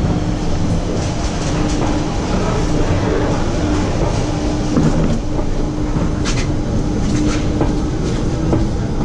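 Mack Rides bobsled coaster train rolling along its guide rails, its wheels rumbling and clattering on the track. An on-and-off hum runs underneath, and two sharp clicks come about two thirds of the way in.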